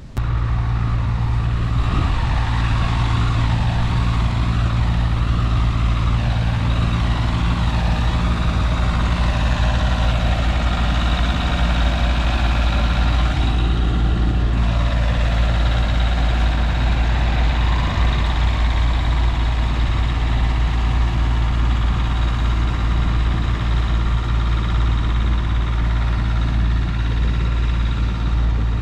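A motor vehicle's engine running steadily and close, a constant low hum.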